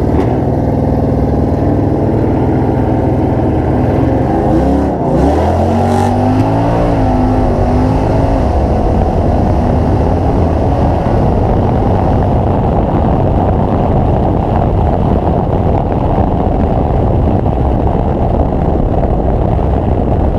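Car engines running steadily, then revving with a rising pitch about five seconds in, giving way to loud, dense engine and exhaust noise of cars accelerating hard.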